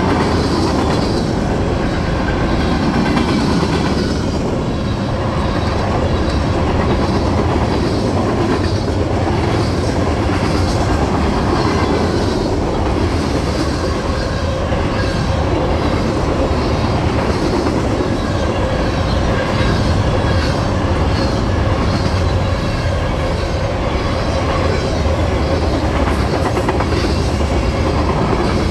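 Norfolk Southern freight train rolling past at steady speed, its wheels clicking over the rail joints in a continuous rhythm, with a faint steady ringing tone above the rumble.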